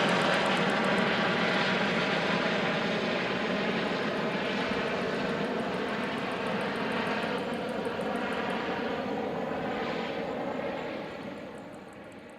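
Helicopter passing and moving away: steady rotor and engine noise with a fast, fine blade chop, slowly easing, then dying away quickly near the end.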